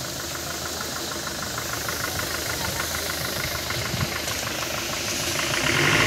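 An engine idling, with a fast, regular ticking over a steady running noise.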